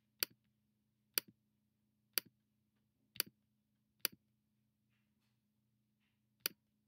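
Computer mouse button clicked six times, about once a second with a longer pause before the last, each click a sharp press followed by a softer release: clicks placing points along a curve being drawn.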